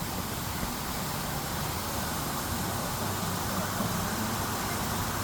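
Steady background hum and hiss, with no distinct knocks or slaps.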